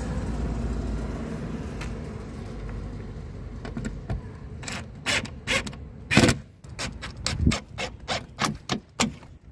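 A Black+Decker drill-driver running screws into a car-door speaker mount in a string of short, irregular bursts that start about halfway through, the loudest a little past the middle. Before that there is a low rumble of handling noise.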